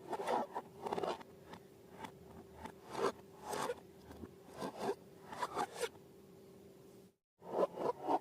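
Slime being worked by hand: irregular bursts of short, crackly, squelching scrapes over a faint steady hum. The sound drops out briefly about seven seconds in.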